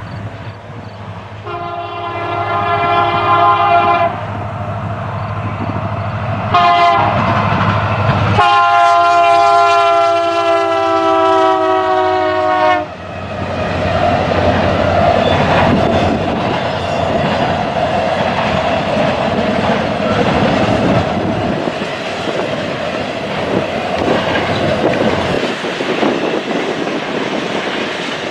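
Diesel locomotive horn sounding a long blast, a short one and a final long one whose chord sags slightly in pitch as the train goes by, the end of a grade-crossing signal. The train then rumbles past with wheels clattering over the rail joints.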